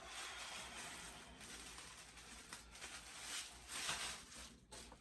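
Rustling of packaging being handled as a statue part is unwrapped from its box, in uneven swells, loudest about four seconds in.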